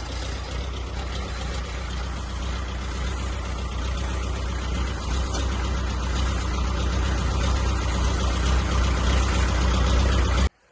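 Farm tractor engine running steadily under load, driving a TMR feed mixer as feed is unloaded; the sound slowly grows louder and cuts off suddenly near the end.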